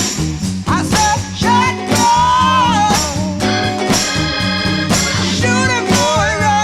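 Intro music: an upbeat song with a sung melody over a steady beat, with a ska or swing feel.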